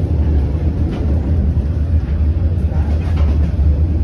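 Passenger train running, heard from inside the coach as a steady low rumble.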